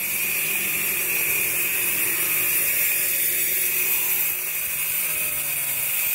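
Power tool running steadily as workers work on a sink, with a steady high-pitched whine.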